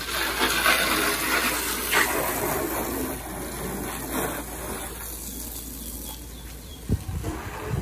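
Garden hose spray nozzle hissing as its jet of water splashes over a car's body and glass, louder in the first couple of seconds and softer from about five seconds in.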